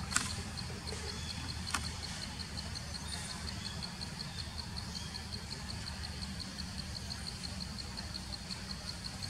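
A high-pitched insect trill pulsing rapidly and evenly, over a steady low rumble, with two sharp clicks in the first two seconds.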